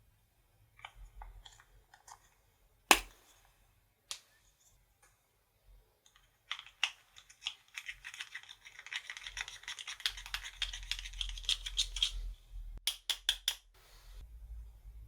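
Clear slime being worked and mixed, giving a dense run of small sticky clicks and crackles in the middle. There are scattered clicks before it, one loud click about three seconds in, and a few sharper clicks near the end.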